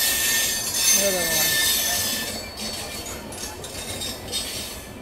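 Indian Railways express train (the Purva Express) rushing past on the adjacent track: a loud hiss of wheels on rail with a thin steady wheel squeal, breaking into a flutter as the last coaches go by, then dropping away just before the end.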